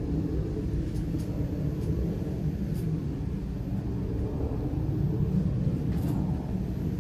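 Distant engine noise of a climbing New Shepard rocket's hydrogen-fuelled BE-3 engine: a steady, low, rumbling roar with a few faint ticks on top.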